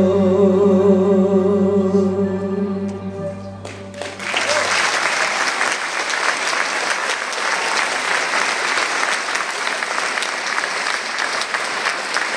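A woman's voice holding the final note of a Romanian folk song with a wide vibrato, ending about four seconds in. The audience then breaks into steady applause.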